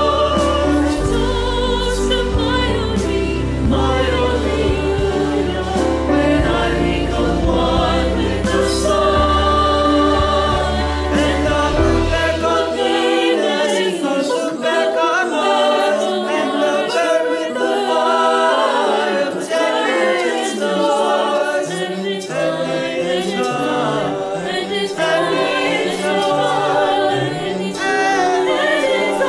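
A virtual choir of mixed male and female voices singing together, each voice recorded separately and mixed into one. A deep bass line underneath drops out about twelve seconds in, leaving the voices singing on their own.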